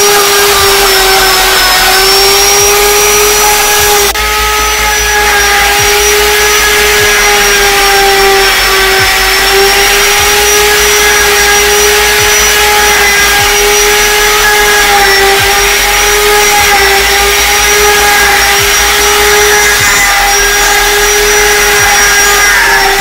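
Electric plunge router running with a steady whine while it cuts a mortise in a wooden window-frame timber.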